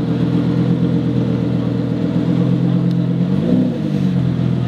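Lamborghini supercar engine running at low speed as the car rolls away, with one short throttle blip that rises and falls in pitch about three and a half seconds in.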